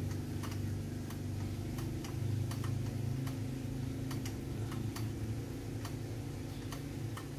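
Even ticking, about three ticks every two seconds, over a low steady hum.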